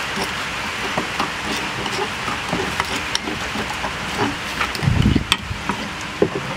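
Metal spoon clicking and scraping against the inside of a mortar as a chili dipping sauce is stirred, over a steady hiss. A low thump comes about five seconds in.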